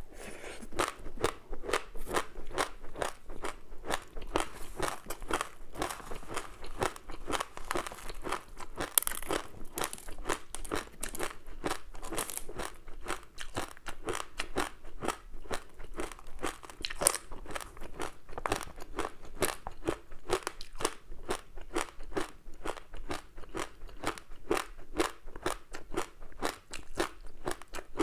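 Close-miked crunching and chewing of crispy seaweed-coated rice snack: rapid crackly crunches, several a second, all the way through.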